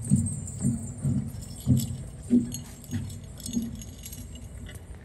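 Footsteps thudding across a stage, a little under two steps a second, dying away about three and a half seconds in, with faint light clicks and jingling over them.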